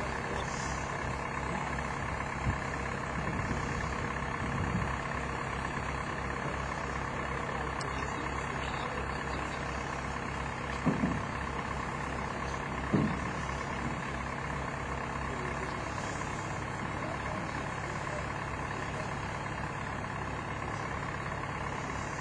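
Heavy engine idling steadily, with two sharp knocks about two seconds apart near the middle.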